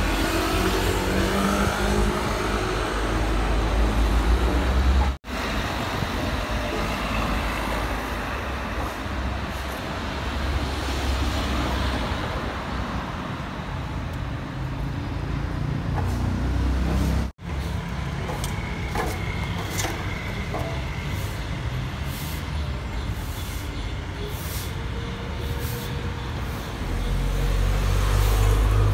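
Street traffic: motor vehicles running and passing, with a steady low engine rumble that swells near the end as one comes close. The sound drops out suddenly twice, about five seconds in and again about twelve seconds later, and a few light clicks fall in the second half.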